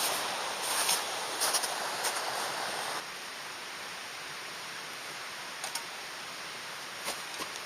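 Steady rushing of a mountain stream, with light clicks and rustles over it in the first few seconds; the sound drops to a quieter, even rush about three seconds in.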